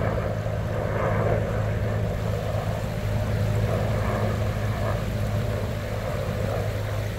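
Steady engine drone: a low, even hum with a rushing noise above it, holding level without revving.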